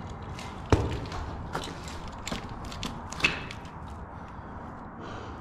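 Boots scrambling over slippery mud and limestone rock: a series of scrapes and clicks, with two louder knocks, one about a second in and another about three seconds in.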